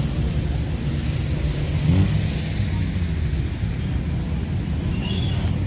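Outdoor city street noise: a steady low rumble, with faint voices now and then.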